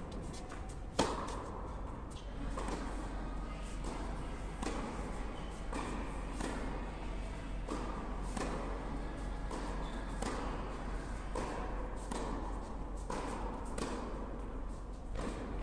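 Tennis ball struck by rackets and bouncing on an indoor court during a baseline rally: a steady run of sharp pops, about one or two a second, each echoing in the hall, the loudest about a second in.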